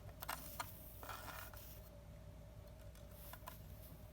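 Faint clicks and a short scrape of a small silver ring band being handled and turned over on the workbench, over a faint steady hum.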